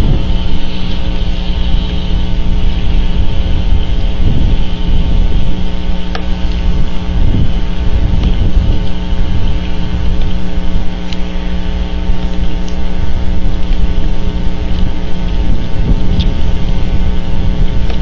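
Loud steady wind rumble on an outdoor camera microphone, with a constant electrical hum underneath and a few faint clicks.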